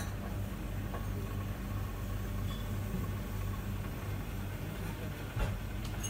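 Steady low hum of room ambience with a few faint clicks and clinks, about a second in and again near the end.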